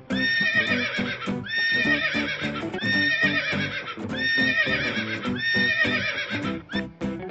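Horse whinnying again and again, about five neighs in a row, each about a second long, rising sharply at the start and then shaking up and down in pitch.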